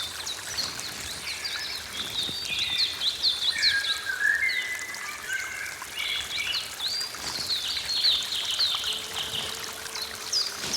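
Forest dawn chorus: several birds singing at once in rapid, overlapping chirps and short whistles, over a steady trickle of running water.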